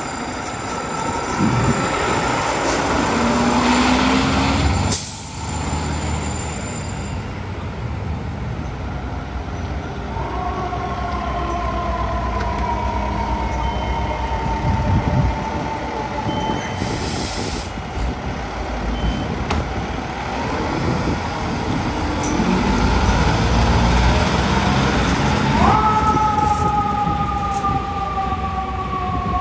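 FDNY fire apparatus, a pumper and a tower ladder truck, pulling out with diesel engines running. There is a short air-brake hiss about midway. A siren sounds two long wails, each rising quickly and then falling slowly, the second starting near the end.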